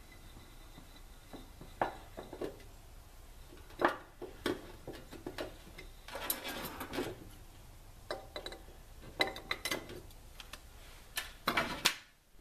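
Handling noises from hands working wires into a glass mason jar packed with stainless steel scouring pads: scattered clicks and light taps, with a brief scraping rustle about six seconds in.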